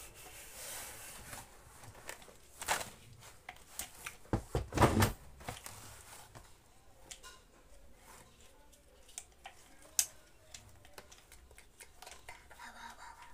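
Hard-plastic clicks and rattles from a rotary hammer drill and its side handle being handled, with its clamp ring loosened. A louder clatter comes about four to five seconds in, and a single sharp click about ten seconds in.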